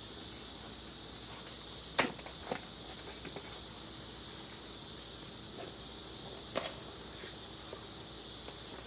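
A few sharp clicks and knocks of a tool's packaging being handled and opened, the loudest about two seconds in and another near two-thirds of the way through, over a steady high-pitched background drone.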